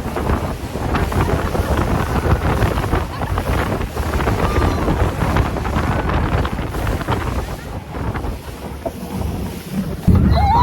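Wind buffeting the microphone on a moving boat at sea, with the rush of water under the hull, in uneven gusts. A sudden louder blast of wind on the microphone comes near the end.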